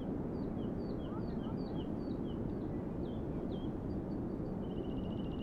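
Steady wind noise, with a small songbird repeating a two-note phrase, high then lower, about eight times. Near the end a rapid trill begins.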